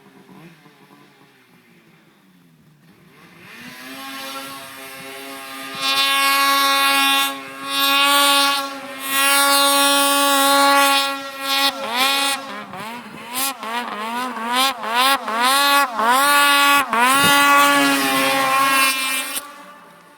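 2012 Polaris Pro RMK 800 snowmobile's two-stroke twin revving through an aftermarket HPS exhaust can. After a quiet start it winds up and holds a high, steady rev. It then gives a string of quick throttle blips, rising and falling about twice a second, and a last long high rev that cuts off near the end.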